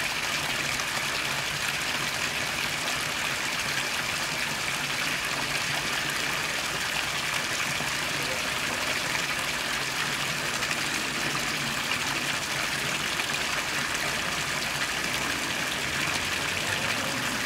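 A thin jet of fountain water splashing steadily into a basin pool.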